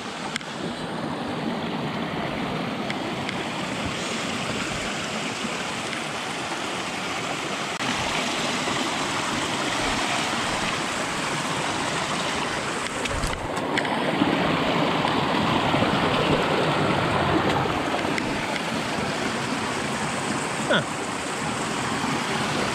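Small rocky creek rushing and splashing over stones in a little cascade, a steady rush that grows louder partway through.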